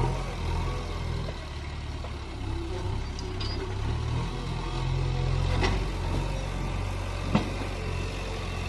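Heavy diesel engine of earthmoving machinery running steadily, its pitch shifting slightly, with a couple of metallic knocks and one sharp clank near the end.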